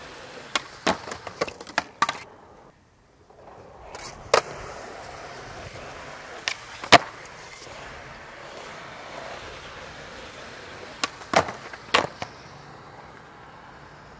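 Skateboard wheels rolling on smooth concrete, with sharp clacks of the board popping and landing in clusters about a second in, near the middle and near the end. The rolling cuts out briefly about three seconds in.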